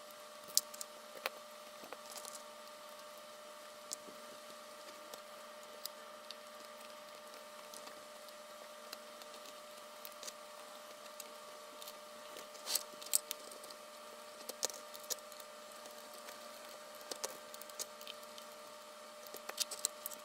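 Scattered small clicks and taps of a hex driver and small screws being driven to secure a replacement gimbal in a FrSky Taranis X9D transmitter's case. The clicks come in small clusters, more of them in the second half, over a faint steady hum.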